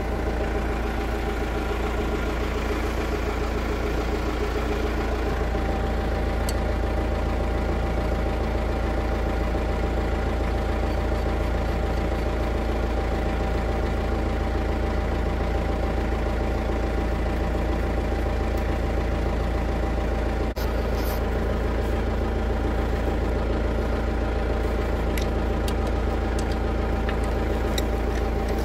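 An engine idling steadily and evenly, with a few faint clicks from wheel nuts and a socket wrench.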